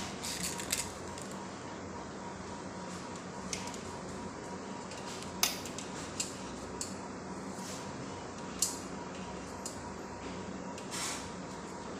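A cat shifting about on a fabric-covered cushion: a few short, sharp clicks and scrapes a second or more apart, the loudest about halfway through and again a little later, over a steady low hum.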